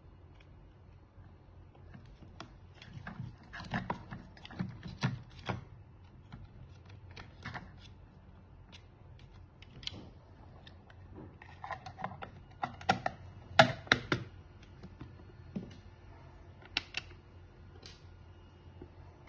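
Scattered sharp clicks and taps of small hard objects being handled, coming in two bunches, the loudest a few clicks just past the middle.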